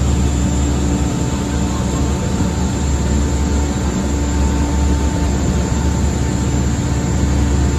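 High-speed ferry's engines running steadily at cruising speed: a loud low drone with a faint steady whine above it, over a rush of wind and churning water.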